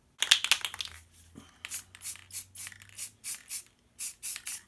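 Aerosol can of gold metallic spray paint sprayed in short bursts, a quick hiss about three times a second, laying a light coat on small metal hinges. A brief clatter comes at the start.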